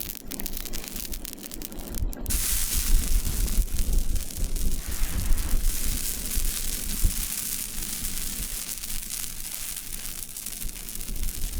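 Dense crackling, crunching noise over a low rumble, growing much brighter about two seconds in.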